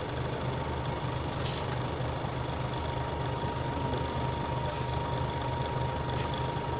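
Nissan Diesel 7E city bus's diesel engine running with a steady low hum, heard from inside the cabin at floor level, with a faint steady whine above it.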